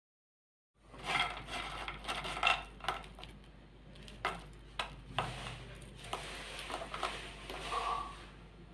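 Kitchen utensils clinking, tapping and scraping against cookware in a run of irregular clicks, starting about a second in after dead silence.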